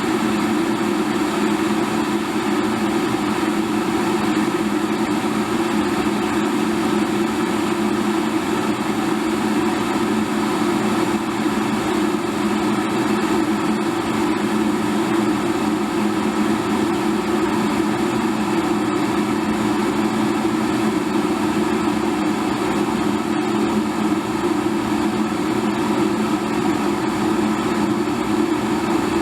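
Electric kettle boiling water: a steady rumbling rush of bubbling water.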